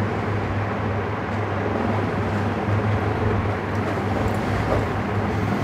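Steady background rumble with a constant low hum, unchanging throughout.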